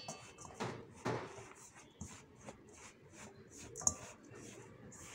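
A hand mixing a dry mix of rice flour, crumbled bread and chopped onion in a steel bowl: faint, irregular rustling and scraping strokes.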